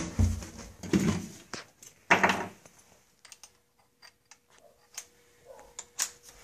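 Sheet-metal furnace vent pipe being fitted back in place: a few scraping, clunking metal sounds in the first two and a half seconds, the loudest about two seconds in, then scattered faint clicks and ticks.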